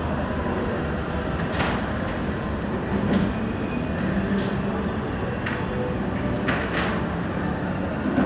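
Shopping-mall ambience: a steady rumble and hiss of a large indoor space, with a few short sharp clicks scattered through.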